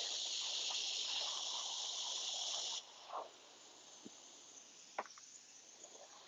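Airbrush hissing as it sprays paint onto canvas, loud for about three seconds and then softer and steady, with a few faint clicks.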